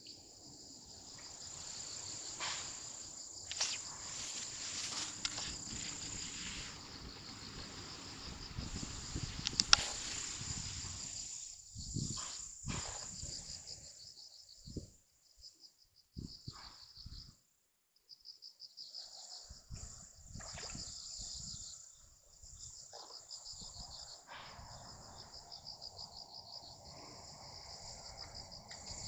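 A steady high-pitched insect chorus of crickets trilling, which cuts out briefly about halfway. Over it come rustling and knocks, with one sharp click about ten seconds in.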